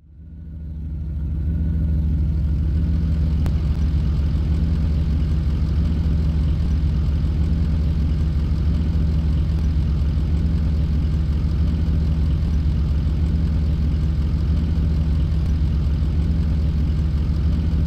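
A vehicle engine idling steadily with a deep, even hum, fading in over the first second or two.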